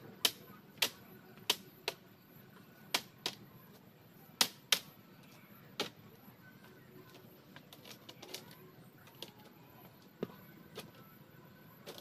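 A series of sharp, irregular clicking knocks, about one or two a second, that grow fainter and sparser after about six seconds.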